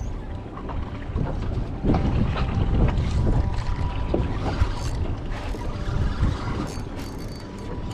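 Wind buffeting the microphone on a boat out on the water, an uneven low rumble.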